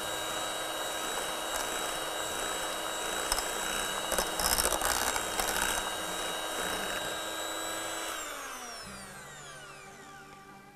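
Electric hand mixer running steadily with its beaters in a cream in a steel pot, with a stretch of rattling from about three to six seconds in. About eight seconds in it is switched off and its whine falls away as the motor spins down.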